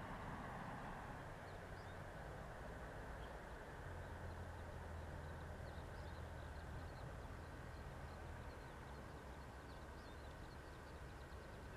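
Faint outdoor ambience: a steady low hum with a background wash and faint high chirps scattered through the middle and later part.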